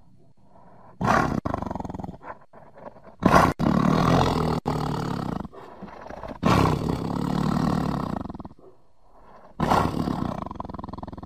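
Tiger roaring: four loud, deep calls, the middle two each lasting about two seconds.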